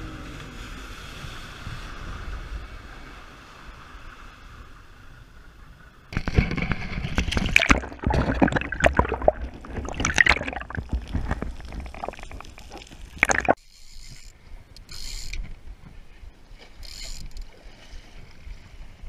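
Sea water: a steady wash of water and wind at first, then about a third of the way in a loud rushing, crackling water noise from a camera under the surface, cutting off suddenly about two-thirds of the way in, leaving faint lapping and hiss.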